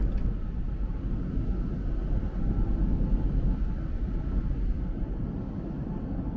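Large car ferry's engines running with a steady low rumble and deep hum as it gets ready to leave the quay.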